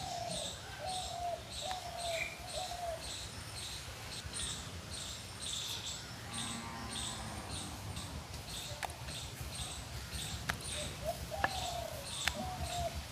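Birds calling: a small bird chirps repeatedly in high notes about twice a second, while a dove coos in a short series of low notes near the start and again near the end. A few sharp clicks come in the second half.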